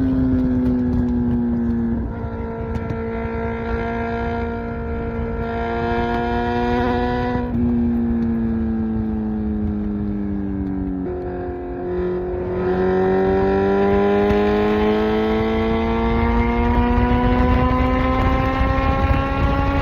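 Kawasaki Z900's 948cc inline-four through an SC Project exhaust, heard while riding: the engine note sinks slowly as the bike rolls off, with small steps along the way, then after a brief break about two-thirds of the way through it climbs steadily as the bike accelerates.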